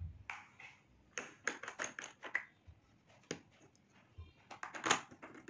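Irregular plastic clicks, taps and small scrapes as an SJCAM SJ6 Legend action camera is fitted onto a helmet-top mount.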